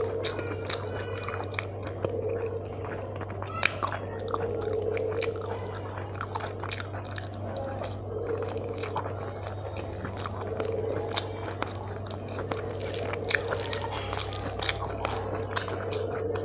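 Close-miked eating by hand: wet chewing, lip smacks and mouth clicks as rice and fish curry are mixed with the fingers and eaten, with short low hums every couple of seconds. A steady low hum lies underneath.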